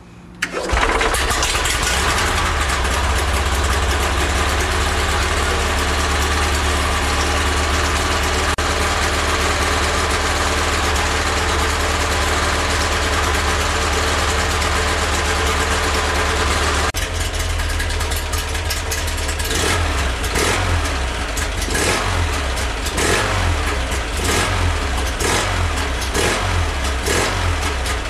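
Steyr-Puch 650 TR II air-cooled flat-twin engine with a Monte-Carlo exhaust, starting on its first test run. It fires up about a second in and runs steadily. About two-thirds of the way through the note drops, and from then on it is blipped repeatedly on the throttle.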